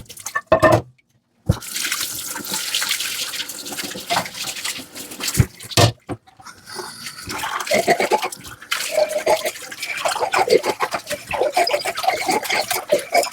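Dishes being hand-washed in a sink: sponge scrubbing and water splashing, with scattered clinks of dishes.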